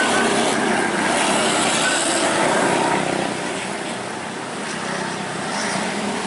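Roadside traffic noise from a large vehicle, likely a tour bus, passing by: a dense, steady rush of engine and tyre sound, louder for about the first three seconds and then easing off somewhat.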